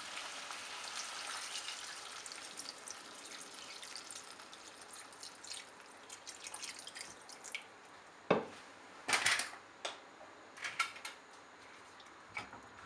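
Mutton and mustard paste sizzling in a pan as water is poured in, the sizzle slowly dying down. From about eight seconds in, a few sharp knocks and sloshing as the curry is stirred in the liquid.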